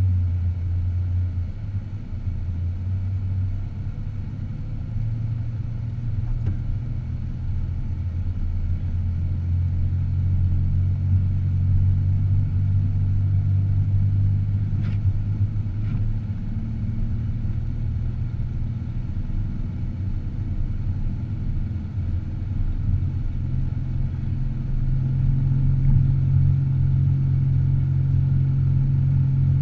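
Car engine and road noise heard from inside the cabin while driving: a steady low drone that steps up in pitch a few times as the engine speed changes. Two faint clicks come about halfway through.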